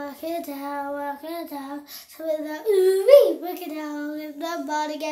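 A young girl singing unaccompanied, holding long steady notes with a quick swoop up and down in pitch about three seconds in.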